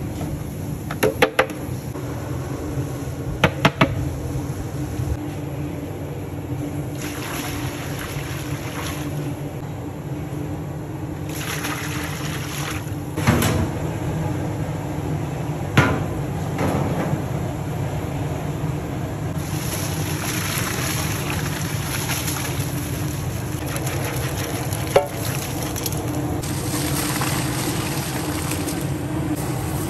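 Cooking at a giant aluminium pot of rice porridge: a steady low rumble from the burner under it runs throughout. Every so often there is a sharp metal clank of the lid or pot. Now and then comes a hissing rush as dry ingredients are poured in, the last one being a basin of rice tipped into the broth near the end.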